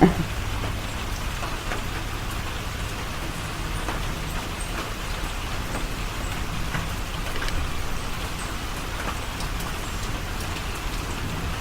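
Steady rain falling, with many small drop ticks over an even hiss and a low steady rumble underneath.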